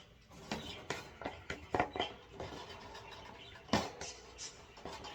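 Metal wire bird-cage parts clinking and rattling as they are handled and fitted together: irregular clicks and knocks, two louder clanks, one just before two seconds in and one near four seconds.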